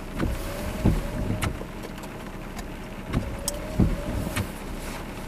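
Heavy rain on a car, heard from inside the cabin: a steady patter with irregular sharp clicks and several heavier thumps of drops hitting the roof and windshield.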